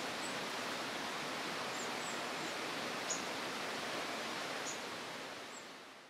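Forest ambience: a steady rushing hiss with small birds giving short high chirps every second or so. It fades out near the end.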